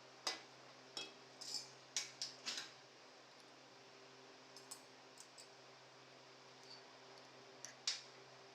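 Kitchen utensils clinking: a quick run of about six sharp clinks and knocks in the first three seconds, a few faint ticks around the middle, and one more clink near the end, over a steady low hum.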